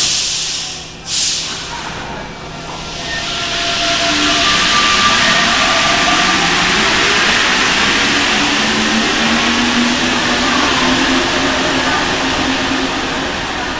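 Rubber-tyred Paris Métro Line 4 train, an MP 89, pulling out of the station. Two short hisses near the start, then the rising whine of the traction motors over a steady rush of tyres, loudest mid-way and fading near the end as the train leaves.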